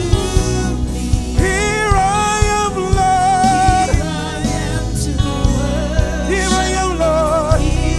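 Gospel worship song performed live: several voices singing long held notes over a band with hand drums, bass and keyboard.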